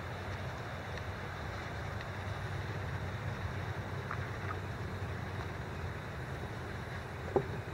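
Steady outdoor background rumble and hiss with no clear single source. There are two faint short chirps about four seconds in and a brief sharp sound near the end.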